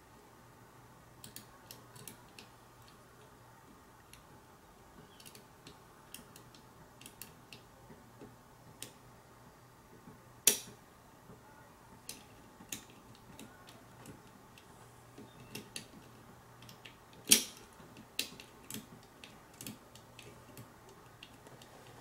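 Small metallic clicks and ticks of lever-lock picking tools working in the keyway of a five-lever mortice lock, scattered and irregular, with two sharper clicks about ten and seventeen seconds in.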